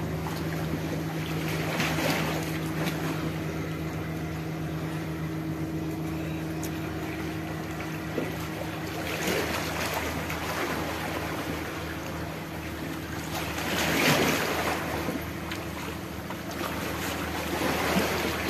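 Sea waves washing against shoreline rocks, swelling three times, the loudest surge about three quarters of the way through, over the steady low drone of a distant boat engine.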